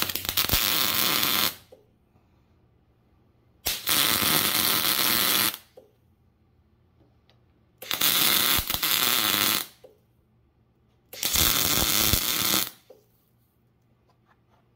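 MIG welder tack-welding a heavy steel washer onto the end of a steel pin: four bursts of arc, each one and a half to two seconds long, with quiet gaps between them. The first burst is already going and stops about a second and a half in.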